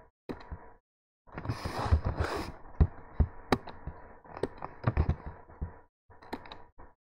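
Computer keyboard keystrokes and mouse clicks, irregular taps. A longer hiss-like rush of noise comes about one and a half to two and a half seconds in.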